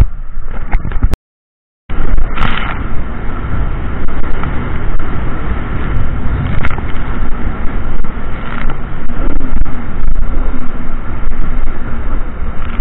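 Jet ski engine running under way, heavy wind and water noise on a camera mounted low on the craft. The sound cuts out completely for under a second about a second in, then comes back loud and steady.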